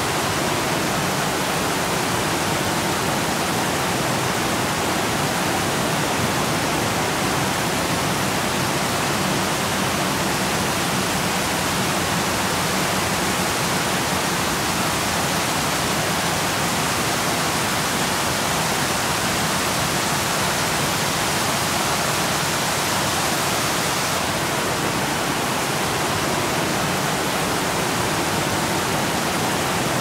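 Spring-fed waterfall pouring down a rocky canyon wall and tumbling over rocks below: a steady, even rush of falling water.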